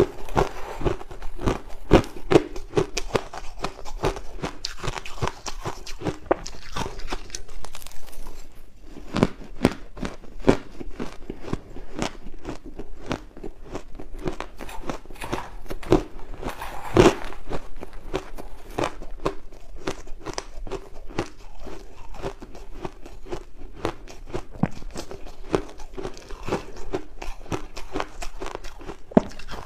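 Crushed ice crunching close up as it is scooped with a metal spoon and bitten and chewed in big mouthfuls: a dense, irregular run of crisp cracks that eases briefly about eight seconds in, with the loudest crunch about 17 seconds in.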